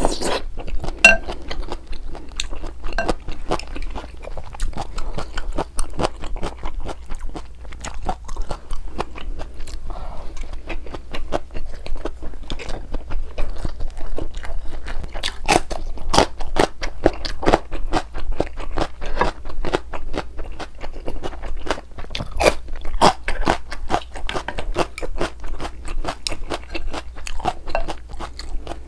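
Close-miked chewing and biting of food, a steady run of wet, sharp mouth clicks and crunches.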